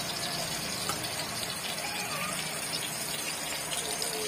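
Tuyo (dried salted fish) sizzling steadily as it fries in oil in a rice cooker pot.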